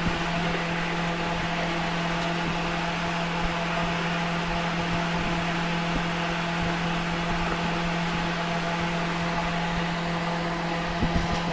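A steady machine hum with a constant hiss over it, like a small motor or fan running without change. A few light clicks come near the end.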